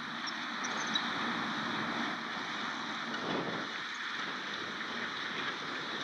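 Fendt 720 Vario tractor's six-cylinder diesel engine running steadily under load, pulling a five-furrow plough through the soil.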